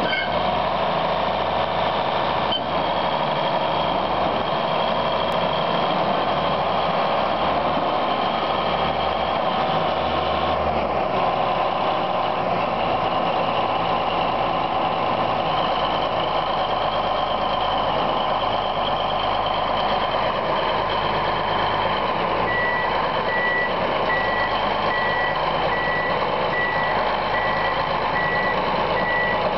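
Large crawler bulldozer's diesel engine running steadily as the machine drives on its tracks. From about three quarters of the way through, a reversing alarm beeps evenly, about two beeps a second.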